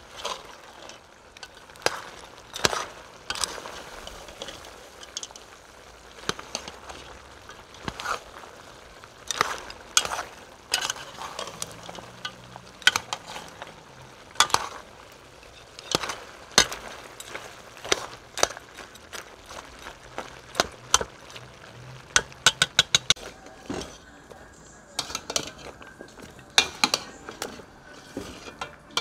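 Metal spoon scraping and knocking against the side of a large pot while curry is stirred over a charcoal fire, with the food sizzling underneath. The knocks come irregularly, about one or two a second, with a quick run of clinks a little past two thirds through.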